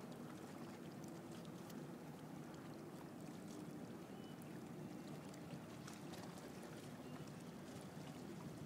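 Faint water lapping and splashing, with small ticks of spray, over a steady low hum.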